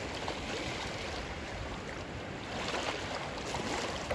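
Sea water sloshing and lapping, with small splashes and light clicks.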